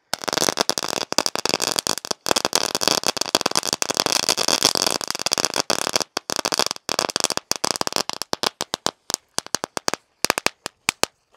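Crackling strobe pot, a ground firework, crackling: a dense fast run of small pops for about seven seconds, then thinning to scattered single pops that die out near the end.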